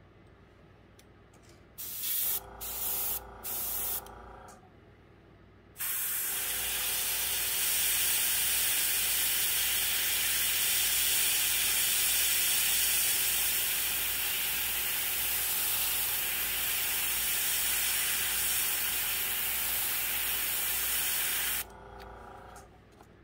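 Airbrush spraying bright red paint: three short puffs of air, then a long steady hiss of about fifteen seconds that cuts off abruptly near the end.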